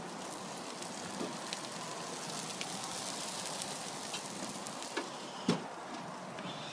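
Meat sizzling on foil on an open gas grill: a steady hiss with small crackles. A sharp click comes about five and a half seconds in.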